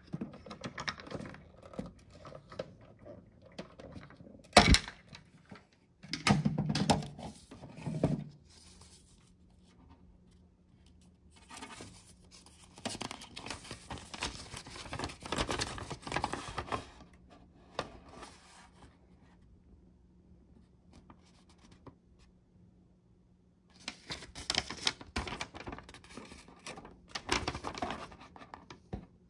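A paper instruction leaflet is unfolded and handled, in several bursts of rustling and crackling. A single sharp knock comes a few seconds earlier.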